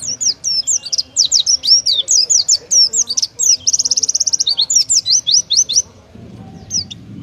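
Oriental white-eye (pleci) singing a fast run of sharp, high sliding whistled notes with a rapid trill in the middle: its 'tembakan' song. The song stops near the end.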